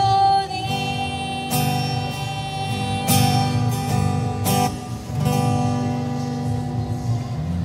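Acoustic guitar strummed in chords, each strum ringing on into the next. A woman's held sung note trails off in the first half-second.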